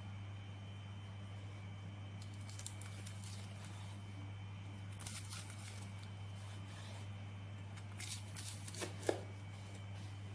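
Faint, scattered crackles and clicks over a steady low hum, with a quick run of sharper clicks near the end.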